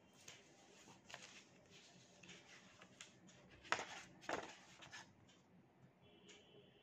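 Faint rustling of a sheet of drawing paper being handled and lifted, with two louder rustles near the middle.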